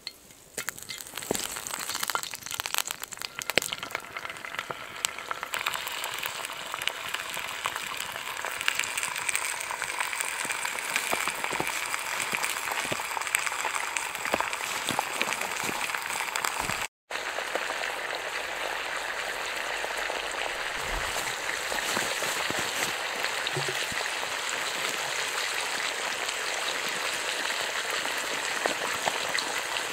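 Bacon rashers sizzling in hot oil in a cast-iron skillet. The sizzle starts about half a second in as the bacon goes into the pan, crackles and spits sharply for the first few seconds, then settles into a steady sizzle.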